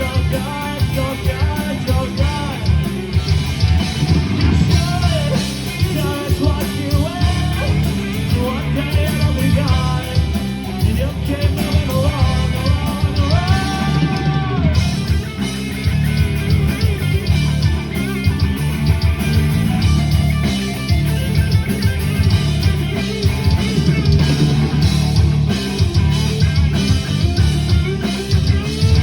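Rock music with singing, electric guitar and drums, playing steadily.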